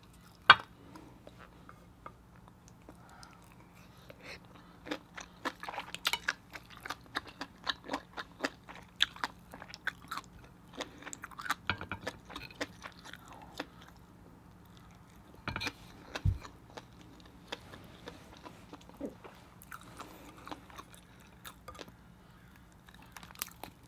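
Close-miked wet chewing and mouth smacks of someone eating soft seafood and rice, in irregular clicks with short pauses between bites.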